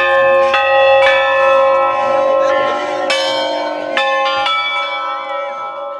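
Tower bells struck several times: a quick run of strokes near the start and another about three to four and a half seconds in, each stroke ringing on and overlapping the next. The ringing begins to die away near the end.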